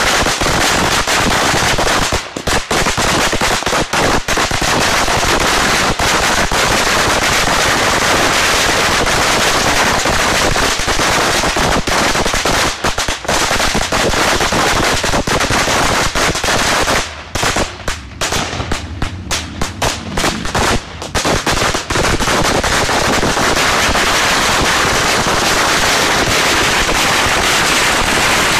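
A long string of firecrackers, counted at 25,000, going off in a dense, continuous rattle of bangs. Past the middle it thins for a few seconds into scattered pops, then runs dense again.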